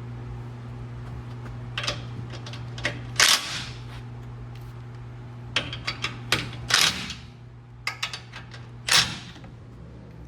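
Sharp metallic knocks and clanks from tools and steel parts as the bumper impact brackets are fitted to the truck's frame rail. They come irregularly, a quick cluster around the middle and three louder ones with a short ring, over a steady low hum.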